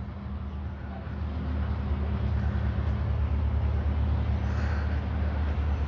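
Steady low engine rumble from a nearby vehicle or train, getting a little louder about a second and a half in.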